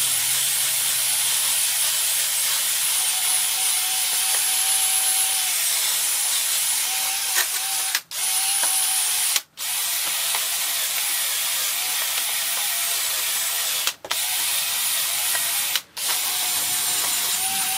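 Cordless drill spinning a brush attachment against the piston tops of a Chevy small-block, scrubbing off carbon and grime. It runs as a steady whir and cuts out briefly four times, near 8, 9½, 14 and 16 seconds in, as the trigger is released and pressed again.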